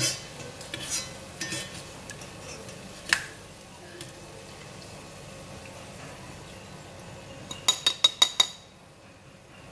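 Metal skimmer clinking and scraping against a stainless-steel pot as fried ginger strips are scooped from the oil. Near the end comes a quick run of about eight sharp taps on a bowl as the ginger is knocked off the skimmer.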